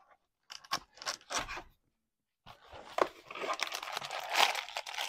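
A cardboard trading-card box being opened and its foil-wrapped card packs handled: a few short scrapes, a brief pause, then steady crinkling and tearing of wrapper and cardboard with a sharp click about three seconds in.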